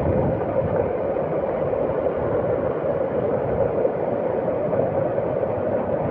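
Floodwater rushing past in a steady, unbroken wash of noise.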